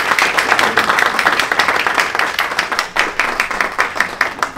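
An audience applauding, a dense run of hand claps that dies away near the end.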